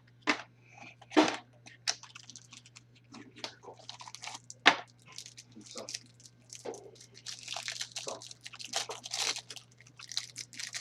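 Foil trading-card pack wrappers crinkling and tearing as packs are opened, with a few sharp clicks and snaps among the rustling, which grows denser in the second half.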